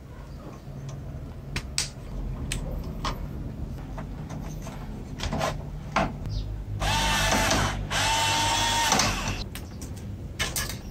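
An electric screwdriver runs in two bursts of about a second each, with a steady motor whine, while screws are driven out of a CRT monitor's metal chassis. Before that come scattered clicks from handling circuit boards and plastic connectors.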